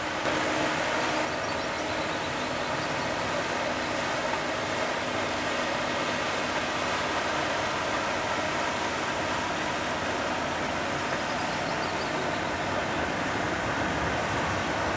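Car ferry MF Fosen under way close by, its engines and propellers making a steady, unbroken rumble as it comes in toward the quay.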